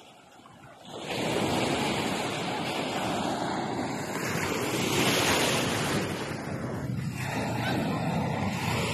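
Ocean waves breaking and washing in: a rushing surge starts about a second in, swells to a peak midway, eases briefly and surges again near the end.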